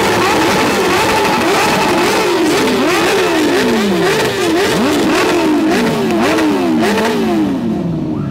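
Several litre-class superbikes (Kawasaki ZX-10R, Yamaha R1, BMW S1000RR, Aprilia RSV4, Honda CBR1000RR and Suzuki GSX-R1000s) revving together, their engine notes repeatedly climbing and dropping in overlapping blips. The revving dies away near the end.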